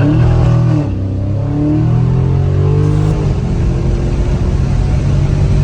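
Dodge Scat Pack's 6.4-litre HEMI V8 accelerating hard under full throttle. Its pitch climbs and drops at gear changes, about one and three seconds in.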